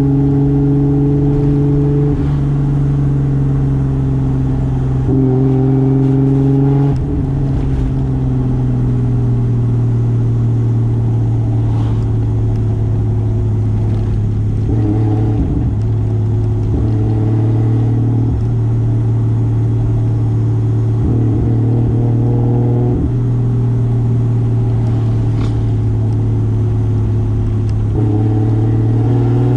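Single-turbo 2JZ inline-six of a 1995 Toyota Soarer running under way at a steady speed, its note holding level for most of the time. Near the end it starts to rise as the car accelerates.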